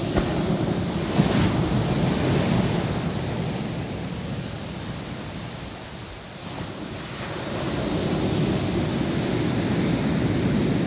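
Ocean waves breaking and washing up a black sand beach, with wind buffeting the microphone. The surf is louder in the first few seconds, eases off about six seconds in, then builds again as the next wave comes in.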